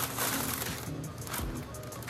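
A plastic bag rustling and crinkling in irregular bursts as a packaged item is pulled out of it, over background music.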